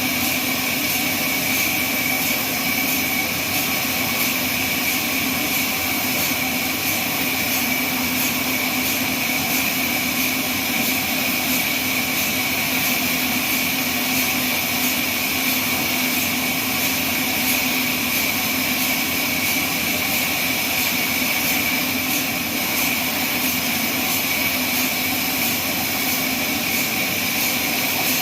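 Sawmill band saw running steadily, a constant high-pitched whine over a lower hum, with no change in pitch or level.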